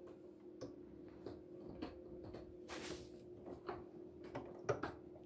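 Faint clicks and small handling sounds of hands threading a home sewing machine's needle, with a short rustle about three seconds in, over a steady low hum.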